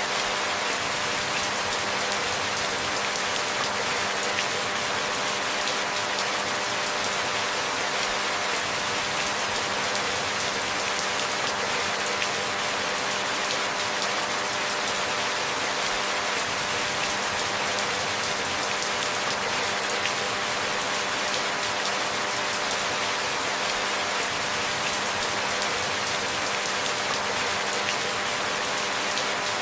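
Steady rainfall, an even dense hiss of drops that does not change. Faint steady hum tones run underneath.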